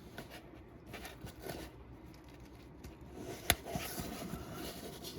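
Faint handling sounds, with one sharp click about three and a half seconds in.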